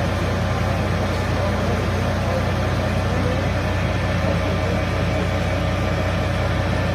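An engine running steadily with an even low hum, with a noisy haze above it.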